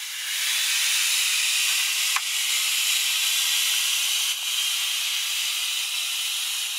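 Air hissing steadily out of the opened quarter-turn valve of a Brownie's Third Lung hookah's inflatable float as hands press the float flat to deflate it.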